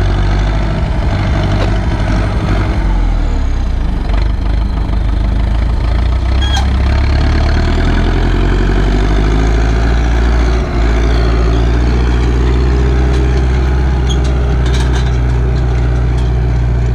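Turbocharged Ursus C-360 tractor's four-cylinder diesel engine running steadily under load, pulling a cultivator through freshly ploughed soil.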